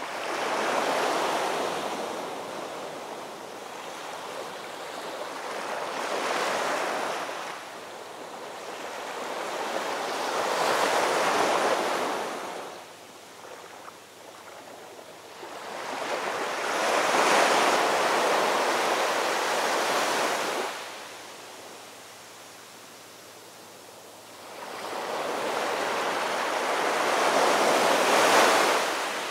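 Ocean surf washing in and out: about five slow swells of rushing water, each rising and then falling away into a quieter lull.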